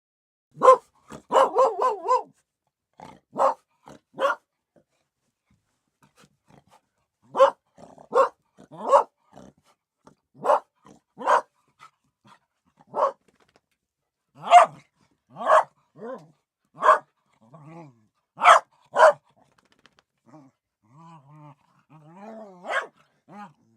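Dogs barking in short, sharp barks: a quick run of barks near the start, then single barks and pairs spaced a second or two apart. In the last few seconds the barks give way to softer, wavering dog calls.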